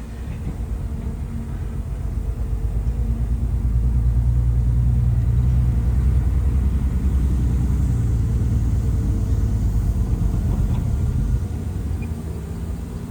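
Shantui bulldozer's diesel engine working hard with a deep rumble, building up over the first few seconds and easing back near the end.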